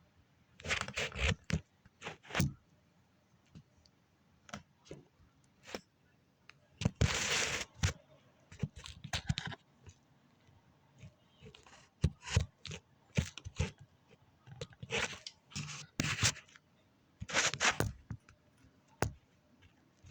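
Irregular bursts of scraping, crunching and rustling from the camera or phone being handled and shifted on its mount. Each burst lasts from a fraction of a second to about a second, with quiet gaps between.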